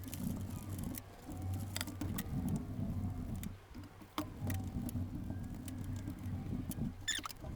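A rag rubbing and wiping over the engine-mount area of a motorcycle frame, an uneven rustling with a brief pause in the middle and scattered light clicks.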